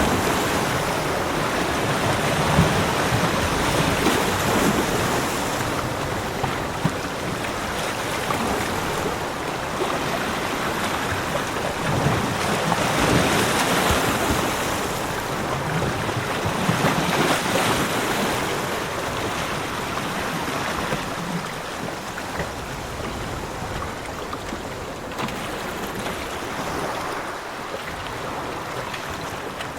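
Ocean surf: waves breaking and washing up a beach in slow, uneven surges, easing off a little toward the end.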